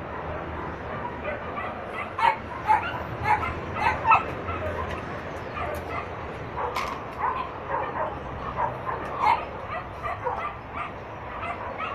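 Brindle dog yipping and whining over and over in short, high calls, worked up at the sight of a cat.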